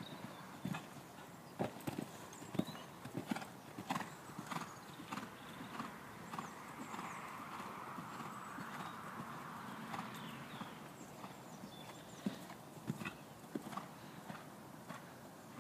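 Horse's hooves striking the arena surface at a canter and over jumps, in irregular runs of sharp thuds.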